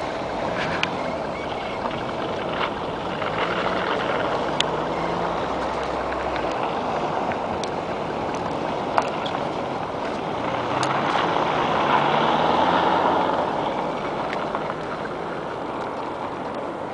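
Urban road traffic: cars and other vehicles driving past, a steady hum of engines and tyres that swells as one vehicle passes loudest about two-thirds of the way through.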